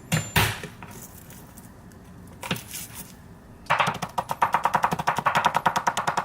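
Kitchen knife chopping garlic cloves rapidly on a cutting board, a fast, even run of about ten strokes a second over the last two and a half seconds, after a couple of knocks at the start.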